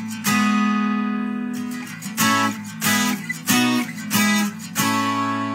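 Martin 12-string and 6-string acoustic guitars strumming chords together, heard as isolated recorded tracks. A few strums in the span, each chord left to ring out before the next.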